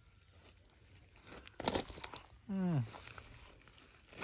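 A nylon cast net rustles and scrapes on gravelly ground as it is handled and lifted, with a short crunching burst a little before halfway. Just after it, a person gives a brief wordless vocal sound that falls in pitch.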